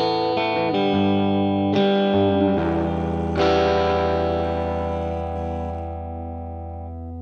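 PRS CE24 electric guitar played through a 1962 Fender 5F1 tweed Champ tube amp, freshly recapped. A few chord changes come first, then one chord is left ringing and fades away over about four seconds.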